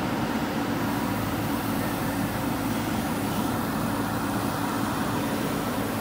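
JCB 3DX backhoe loader's diesel engine running steadily under load as the backhoe arm lifts a bucket of soil out of a drain trench.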